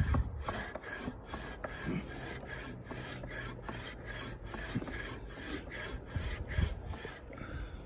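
Hand pruning saw cutting through a tree branch, a steady back-and-forth rasp of about three strokes a second that stops about seven seconds in.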